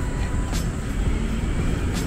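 Street traffic noise: a steady low rumble of passing vehicles, with a couple of short clicks.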